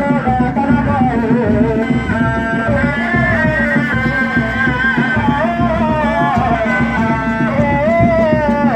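Sundanese reak ensemble music: dogdog drums beating a dense, fast rhythm under a wavering, ornamented melody line that glides in pitch.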